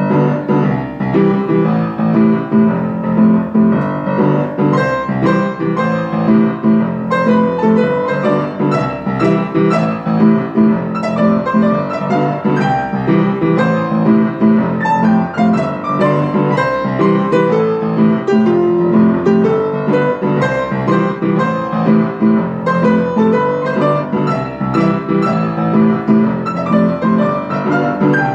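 An upright piano played by several people at one keyboard, a steady run of repeated chords with a melody over them.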